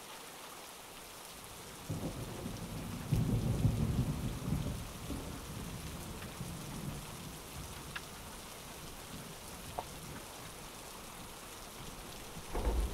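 A thunderstorm: steady rain hiss with rolling thunder. A long low rumble begins about two seconds in and is loudest around three to four seconds, and another rumble rises near the end.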